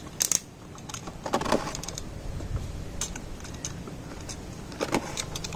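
Scattered clicks and rustles of a small cardboard box being cut open and handled with a plastic box cutter, the sharpest clicks about a second apart.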